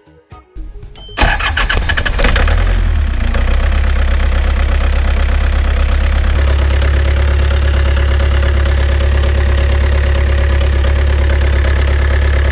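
Yanmar marine diesel engine starting up about a second in and then running steadily with a deep, loud hum that grows stronger about six seconds in. The engine has freshly cleaned injectors, which had been fouled with soot from long idling.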